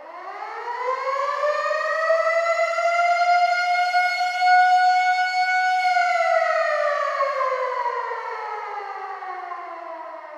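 Air raid (civil defense) siren sounding one wail: its pitch rises over the first few seconds, holds steady, then falls slowly through the second half.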